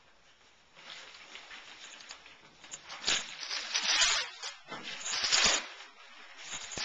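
Thin plastic packaging sheet rustling and crinkling as it is pulled off a present box. There are two loud bursts, about three seconds in and about five seconds in, with softer scraping in between.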